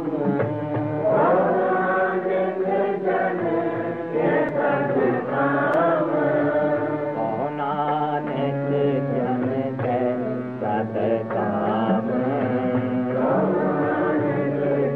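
Sikh devotional chanting of Gurbani: a voice singing a melodic chant line over a steady low drone.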